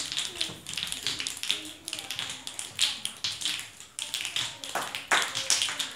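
A group of children snapping their fingers, a dense, uneven patter of clicks that gets louder near the end, with children's voices underneath.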